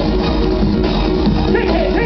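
Loud music playing continuously.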